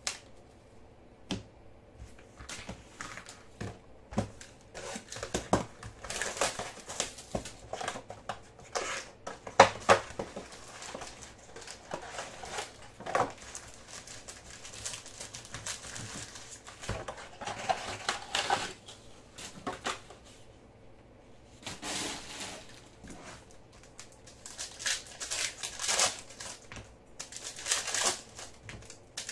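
Foil wrappers of Panini Select basketball card packs crinkling and rustling in the hands, in irregular bursts, as the packs are handled and torn open.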